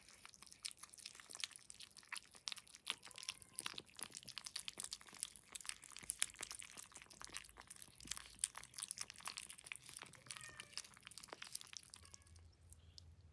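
Several Devon Rex kittens eating wet cat food off a plate: a dense run of small wet smacking and licking clicks, many a second, that stops about a second before the end.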